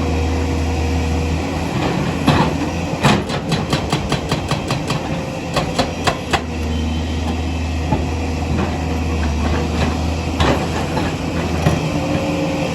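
Excavator's diesel engine running steadily, with a quick run of sharp metallic clanks, about five a second, a few seconds in, and a few single knocks later.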